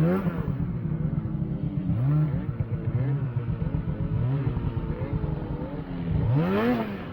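Snowmobile engine running and revving in several short surges, its pitch climbing and falling each time, with the biggest rev near the end.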